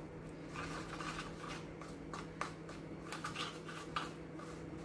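A metal spoon stirring and scraping a thick mix of ground spices and yogurt in a small bowl: soft, irregular scrapes with small clicks against the bowl.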